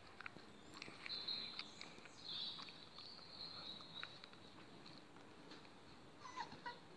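Faint patter and clicking of two spaniel puppies' paws and claws on paving slabs as they play-tug a toy, with thin high-pitched squeaks now and then, a short cluster of them near the end.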